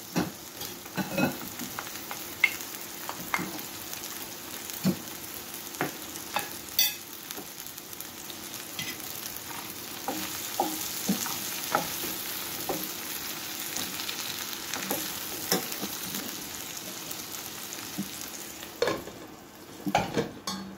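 Chicken, tomatoes and sweet peppers sizzling steadily in a frying pan, with a wooden spoon stirring and knocking against the pan now and then.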